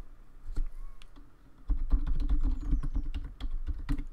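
Typing on a computer keyboard: one or two single clicks, then a fast, steady run of key strokes from about a second and a half in.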